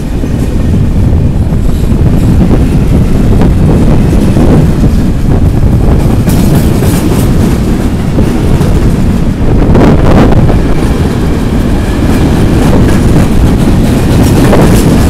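Freight train of empty stake wagons rolling past close by: a loud, steady rumble of wagons and wheels, with occasional clacks of the wheels over rail joints.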